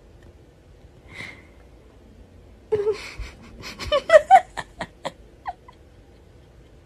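A woman laughing: a burst of short, breathy giggles and gasps starting a little under three seconds in.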